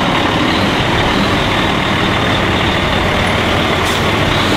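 Fire engine's diesel engine running steadily as the truck pulls out of the station bay and drives past.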